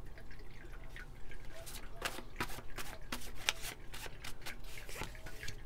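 Tarot cards being handled in the hands: soft, irregular clicks and taps as the deck is worked before a card is drawn.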